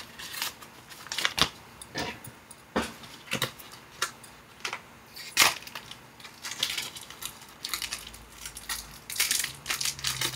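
Foil and plastic packaging crinkling and tearing as a sachet of silver clay is opened and the clay unwrapped by hand. The crackles come irregularly and grow more frequent in the second half.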